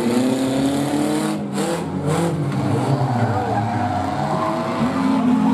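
Engines of several mini figure-8 race cars running and revving together, their pitches rising and falling as the cars accelerate and slow around the track.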